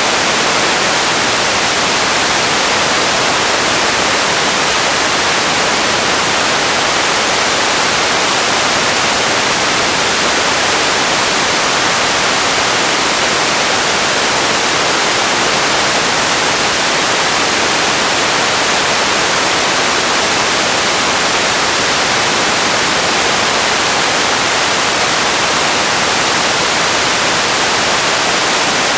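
Steady, loud hiss of static-like noise, bright, with little low end and no change in level or character: an empty ambience noise bed.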